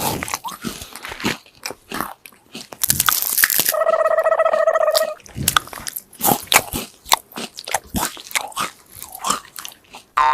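Loud crunching and chewing of peanuts and gajak (jaggery brittle), with many sharp cracking bites. Near the middle there is a short rush of noise, followed by a held tone lasting about a second and a half.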